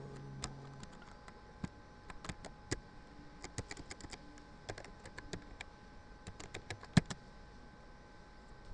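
Typing on a computer keyboard: irregular clicks of keys being struck in quick runs, with one sharper, louder keystroke about seven seconds in.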